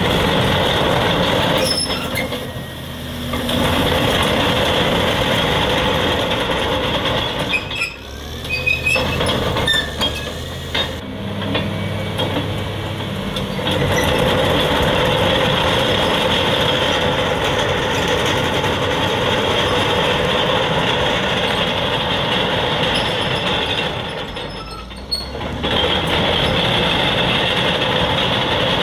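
2003 Caterpillar D6R crawler dozer driving and turning on its steel tracks: the diesel engine runs under load with the metallic clatter of the track chains. The sound eases off briefly three times, a couple of seconds in, around eight seconds and near twenty-five seconds.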